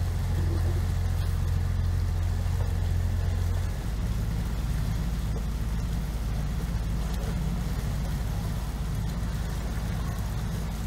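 A Kent 28 Launch motorboat's engine running steadily at low speed, heard from on board. About four seconds in, its note changes and it gets a little quieter.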